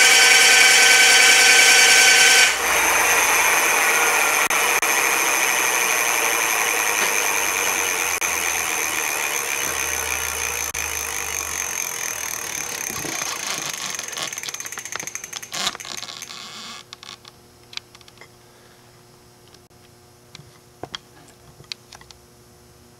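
Electric bike's 1600 W mid-drive motor whining at high speed through the chain and gears with the rear wheel off the ground. About two and a half seconds in, the power cuts and the drivetrain and rear wheel spin down freely, the whine falling in pitch and fading over about fourteen seconds, followed by a few light clicks.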